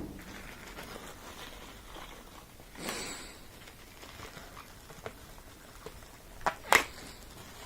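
Handling noises as parts are worked by hand: a brief rustle about three seconds in, then two sharp clicks near the end.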